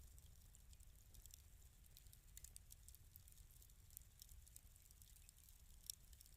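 Wood fire crackling faintly in a fireplace, with scattered small pops and snaps over a low steady rumble and one sharper snap near the end.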